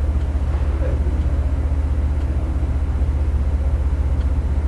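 An engine running steadily: a low drone with a fast, even pulse that does not change.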